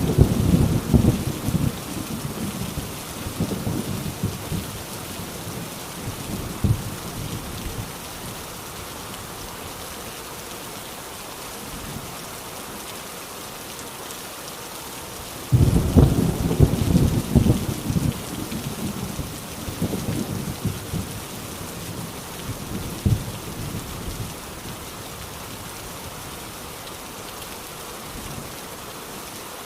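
Heavy rain falling steadily as a constant hiss, with rolling thunder: a rumble dies away over the first several seconds, then a new peal breaks suddenly about halfway through and rumbles on for several seconds, with one more short crack a little later.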